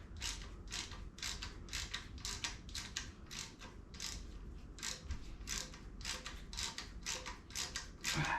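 Socket ratchet clicking steadily, about three to four clicks a second, as a rusted exhaust manifold bolt that has broken loose is turned out.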